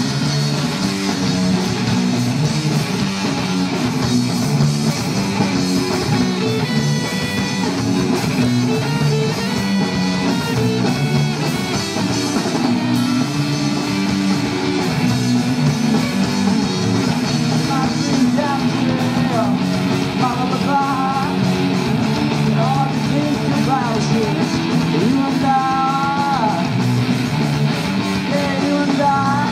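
A live rock band plays an instrumental passage: two electric guitars through Marshall amplifiers, a bass guitar and a drum kit. In the second half, a lead guitar bends and wavers its notes.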